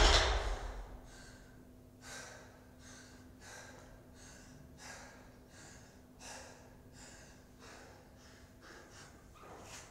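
An athlete panting hard between heavy barbell cleans: short, quick breaths come roughly every second, over a faint steady hum. In the first second, the boom of a loaded barbell dropped to the floor just before is still dying away.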